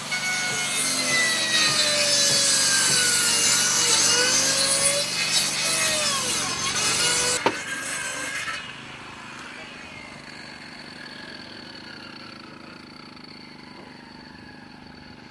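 Electric circular saw cutting through a wooden formwork board; the motor's whine sags and recovers as the blade bites. The cut ends with a sharp click about seven and a half seconds in and the saw winds down about a second later, leaving a much quieter steady background.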